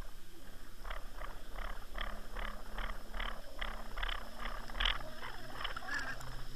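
Muffled underwater sound picked up by a camera on a trolling line while a hooked lake trout is hauled up toward it: a rhythmic pulsing of about two to three knocks a second over a low throb, from water rushing past and the line working.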